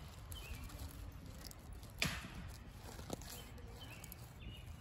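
Small campfire of split kindling crackling, with one sharp pop about two seconds in and a smaller pop about a second later.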